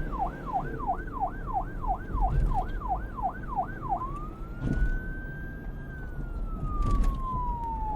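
Police car siren on yelp, fast up-and-down sweeps about three a second, switching about halfway through to wail: one slow rise, then a long falling sweep. A steady low rumble runs underneath.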